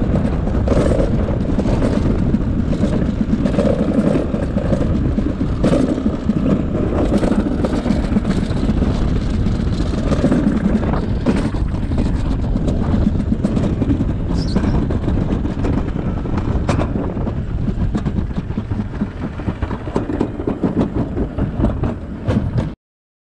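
Summer toboggan sled running fast down a stainless-steel trough: a steady, loud rumble with irregular knocks. It gets quieter near the end as the sled slows into the finish, then cuts off suddenly.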